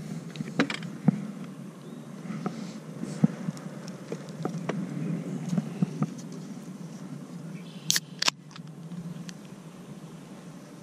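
Scattered light knocks and clicks of things being handled, then, about eight seconds in, two sharp snaps close together as a soda can is cracked open.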